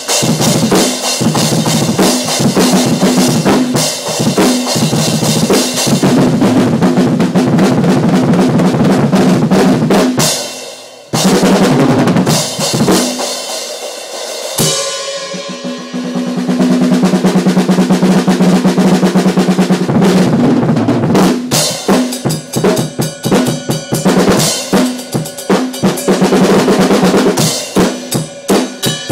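Acoustic drum kit played in a fast solo, with snare, bass drum, toms and cymbals struck in dense runs. The playing breaks off briefly about eleven seconds in, then a long continuous roll gives way to separate quick hits in the last third.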